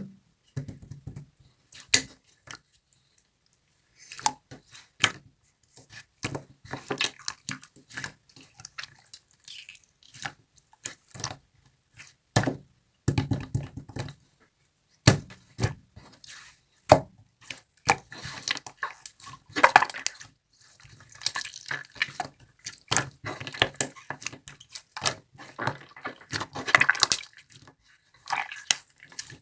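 Translucent jelly slime being squeezed and poked by hand, giving irregular wet clicks and sticky pops with short pauses between.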